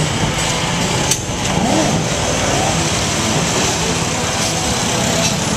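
Small motorbike engine running steadily with wind and road noise while riding slowly through street traffic, with one brief sharp click about a second in.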